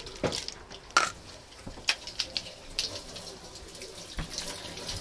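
Tap water running into a sink as something is washed, with several sharp knocks and clatters, the loudest about a second in.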